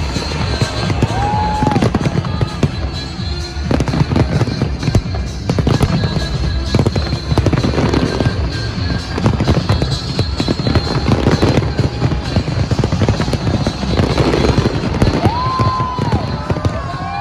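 Fireworks bursting and crackling in quick succession, with music playing alongside.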